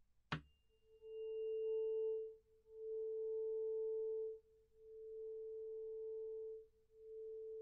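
A steady pure test tone, played back as a stereo recording. A click comes about a third of a second in, then the tone sounds in stretches of about two seconds with short gaps between them, the later stretches quieter.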